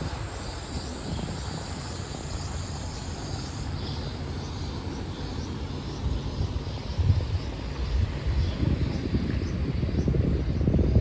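Outdoor ambient noise: a steady low rumble that grows louder and gustier in the second half, with a faint steady high-pitched whine for the first few seconds.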